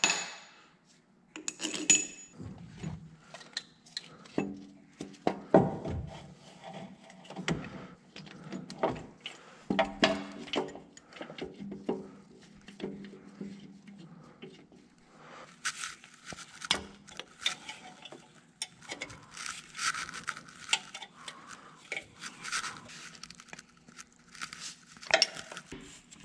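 Metal clinks and knocks of bolts and hand tools as bolts are moved over to a replacement AC compressor and it is bolted into place. A denser run of quick clicks comes in the second half.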